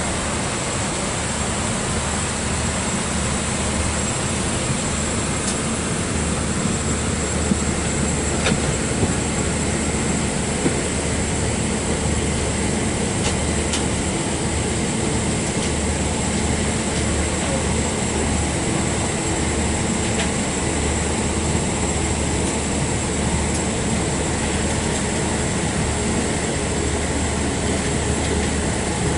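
Steady airliner cabin noise inside a Boeing 777-200 on the ground: a constant hiss over a low engine hum and rumble, with a few faint clicks.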